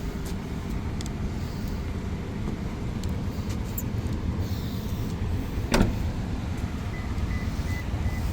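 Steady low rumble around a parked SUV. A single sharp click comes about six seconds in, like a door latch, and near the end a soft high chime begins beeping a few times a second, like a car's warning chime.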